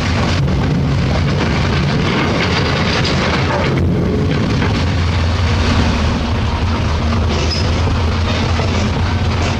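Loaded dump truck's diesel engine running with a steady low drone, with the cab and body rattling as it drives over a rough rock road, heard from inside the cab.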